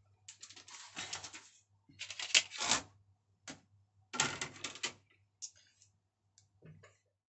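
Thin plastic Lego road baseplates being picked up, shifted and laid down on the layout: several short bursts of clattering and scraping, with a few lighter clicks near the end.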